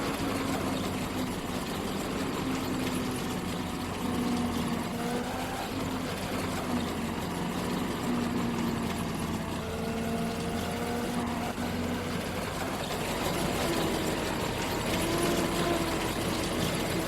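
Engine of harvest machinery running steadily, its hum drifting slightly up and down in pitch and rising a little near the end.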